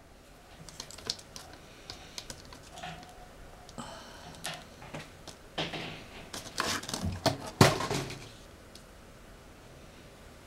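Irregular small clicks and taps. They grow busier in the second half, with brief bursts of rustling and one sharp knock about three-quarters of the way through.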